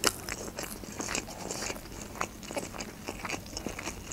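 A mouthful of sushi roll being chewed close to the microphone, with many irregular wet mouth clicks and smacks, the sharpest right at the start.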